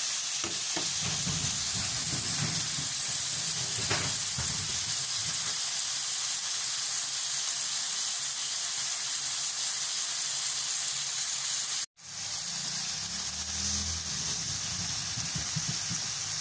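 Diced chicken frying in hot oil in a wok: a steady sizzle with a few knocks of the metal spatula in the first seconds. The sizzle breaks off in a brief gap about twelve seconds in.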